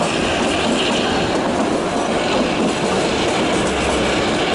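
Kalka–Shimla narrow-gauge train running on the rails: a steady, loud din of wheels and rolling carriage.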